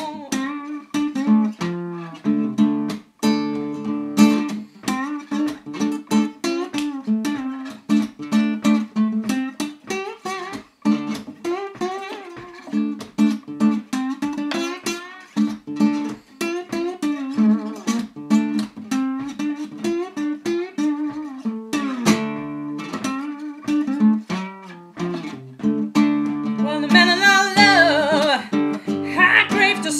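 Acoustic guitar playing an instrumental break in a slow blues, single plucked notes over a repeated low bass line. Near the end a brighter, wavering melody line rises above the picking.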